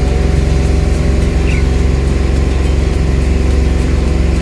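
A motor vehicle's engine running steadily and loud, without changing speed.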